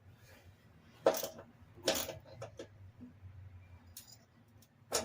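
About five separate metal clinks and knocks, spread a second or so apart: hand tools and parts being handled while spindle bolts on a lawn mower deck are tightened.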